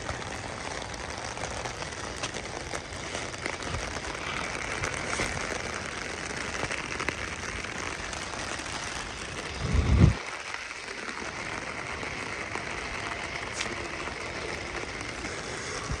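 Steady rain falling, a dense even hiss, with a brief low thump on the microphone about ten seconds in.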